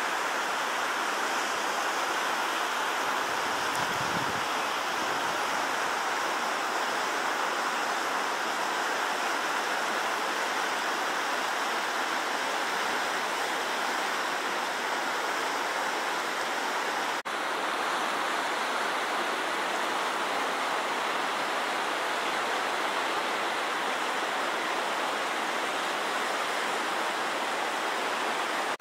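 Steady rush of the St. Francis River in flood, pouring over rapids.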